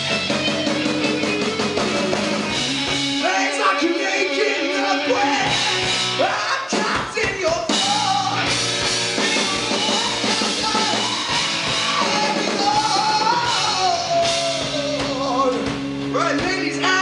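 Live rock band playing: electric guitars, bass and drum kit, with a man singing the lead vocal over them.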